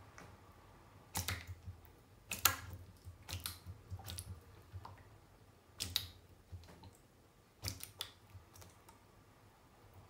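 A horned frog (pacman frog) striking at food held in chopsticks: a series of short, sharp wet smacks and clicks as its jaws snap at the food, several times over, the loudest about two and a half seconds in.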